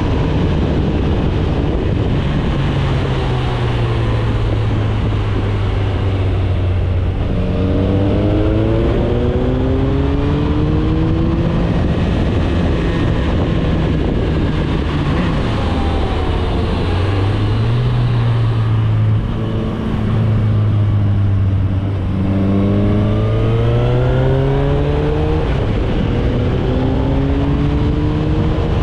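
Motorcycle engine heard from the rider's seat on the move, with a steady rush of wind and road noise. The engine note rises twice as the bike accelerates, about a quarter of the way through and again about three quarters through.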